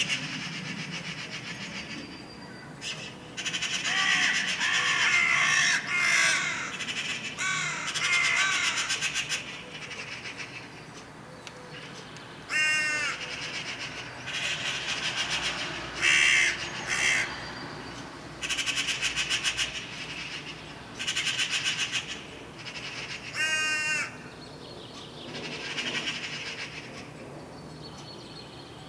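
Carrion crows cawing harshly and repeatedly in clusters of agitated calls during a fight over territory, with a fast rattling run of short notes twice.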